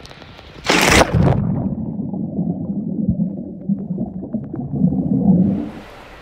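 A person plunging into a swimming pool, a short loud splash about a second in, then muffled underwater gurgling and bubbling that fades near the end.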